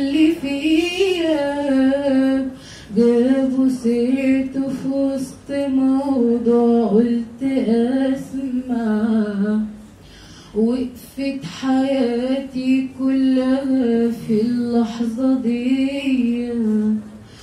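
A girl singing solo and unaccompanied, holding long, gently wavering notes with short pauses for breath about three and ten seconds in.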